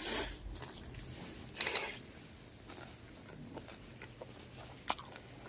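Someone eating at the table: faint chewing, with a brief rustle about a second and a half in and a sharp click near the end.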